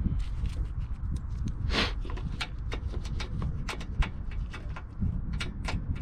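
Scattered clicks and light knocks of hands and tools working on car parts, over a low rumble, with a short scraping noise about two seconds in.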